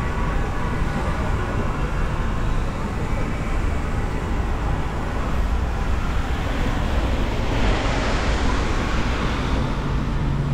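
Wet city-street ambience: steady traffic noise with a low rumble. A louder hiss swells about eight seconds in, and a low steady hum comes in near the end.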